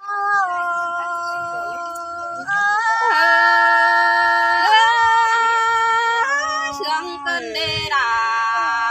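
Unaccompanied singing of a Thái folk song by a high, woman's voice, in long held notes that step up and down and slide from one pitch to the next.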